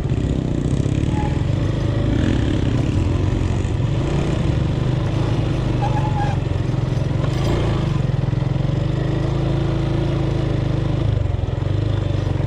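Motorcycle engine running steadily while riding, heard close from the rider's seat, with a change in the engine note about eleven seconds in.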